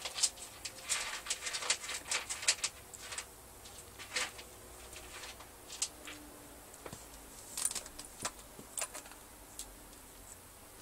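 A quick run of light clicks and taps over the first few seconds, then a few scattered single clicks.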